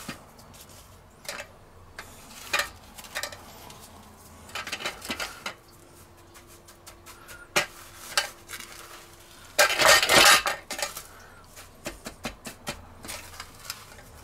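Metal tongs and hands working in a stainless steel roasting pan while breading bacon with panko crumbs: scattered clinks and knocks of metal on metal, with a louder noisy stretch of about a second around ten seconds in.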